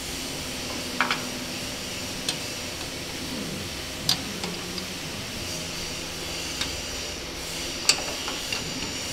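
Steel ring spanner turning a nut at the base of a tank turret's collector ring: a scattering of short, sharp metal clicks and taps, the loudest near the end, over a steady background hum.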